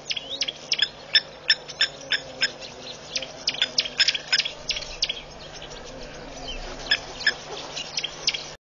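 Blacksmith lapwing (blacksmith plover) giving rapid short, sharp alarm calls, two or three a second in three runs with brief lulls. These are the calls of a nesting plover defending its nest as impala and warthogs crowd close.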